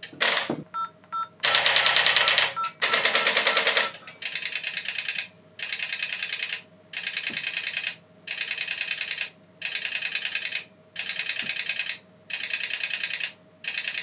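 DTMF-to-pulse dial converter ticking out pulse-dialled digits, after a few brief keypad tones near the start. It pulses about ten runs of rapid ticks, roughly ten ticks to a run and each run about a second long, with short gaps between: a string of zeros being converted without any dropped digits.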